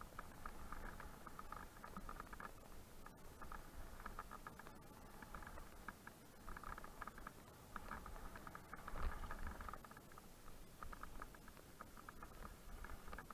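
Mountain bike rattling and ticking in rapid clusters over a low rumble as it rolls down a rough dirt forest trail, with one louder thump about nine seconds in.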